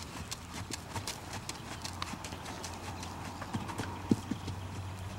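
A horse's hooves cantering on an arena's sand footing, a run of hoofbeats, with one much louder thud about four seconds in as the horse meets a jump.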